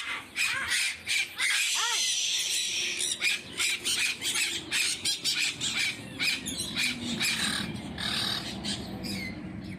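Parrots squawking, many harsh calls overlapping in quick succession, with one call bending up and down in pitch about two seconds in.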